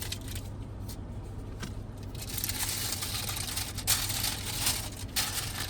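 Paper food wrapper being crinkled and torn open around a snack wrap, quiet at first, then busy crackling rustles for the last few seconds.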